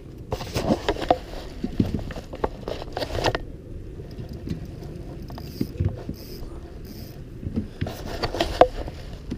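Handling noises from a just-landed bass in a kayak: rustling, clatter and low knocks, in one spell over the first three seconds and another about eight seconds in.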